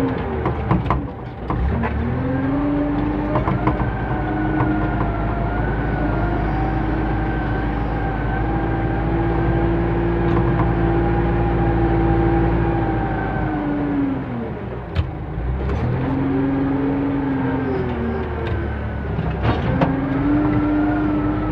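JCB 3CX backhoe loader's diesel engine running hard, heard from the operator's seat. It sags in pitch and picks back up three times, about a second in, around the middle and near the end, with a few brief clanks.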